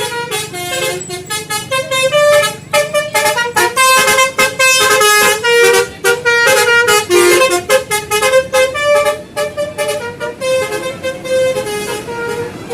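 Basuri telolet bus horn, a multi-trumpet musical air horn, playing a quick tune of short notes that change pitch several times a second.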